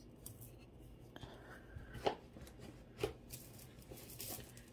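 Faint clicks and rustling of costume jewelry being handled: beaded bracelets tapping and clinking, with two slightly louder clicks about two and three seconds in.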